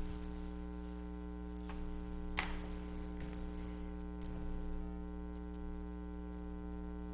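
Steady electrical mains hum picked up by the meeting-room microphone system, a stack of even tones, with one sharp click about two and a half seconds in and a couple of fainter ticks.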